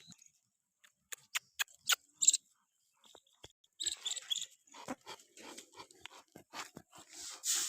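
Goats moving about and handling fodder: a few sharp clicks and knocks, then a denser run of rustling and crackling from about four seconds in, with no bleating.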